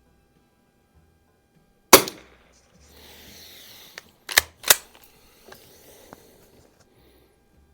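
A 1916 Remington Model 12-C NRA Target .22 rimfire slide-action rifle fires one shot about two seconds in. A few seconds later come two sharp metallic clacks a third of a second apart, followed by a few small clicks, as the pump action is worked to eject the case and chamber the next round.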